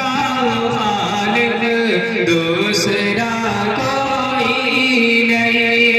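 A man singing solo into a microphone without instruments, holding long notes that waver and slide between pitches in a chant-like melody.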